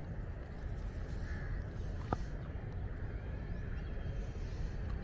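Distant crows cawing faintly over a steady low background rumble, with one short sharp click about two seconds in.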